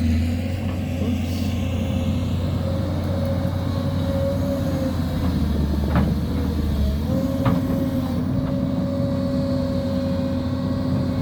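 An engine running steadily with a low, even hum, with a couple of short knocks about six and seven and a half seconds in.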